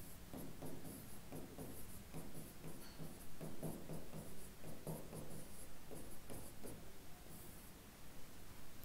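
Handwriting on a board: a run of short, faint pen strokes as a word is written out, stopping about a second before the end.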